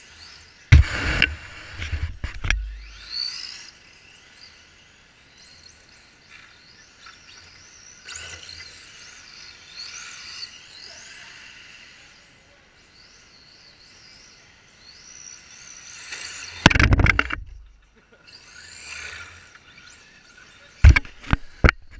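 Radio-controlled drift cars' motors whining, rising and falling in pitch as they rev and slide around. A car passes loudly close by about a second in and again around seventeen seconds in, and a few sharp clicks come near the end.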